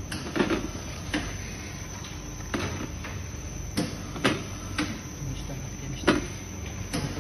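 Dough-cutting machine running: a steady low motor hum with about eight sharp, irregularly spaced knocks of its mechanism.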